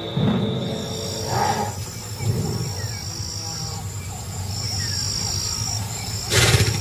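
Crickets chirring in steady high trills, with a few short low animal grunts and one loud short burst of noise near the end.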